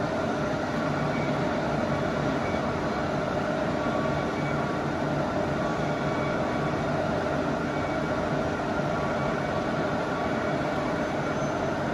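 Hydraulic wheel press running steadily as it forces a locomotive axle down into the hub of a steel traction wheel. It gives a continuous machine hum with a few steady tones in it.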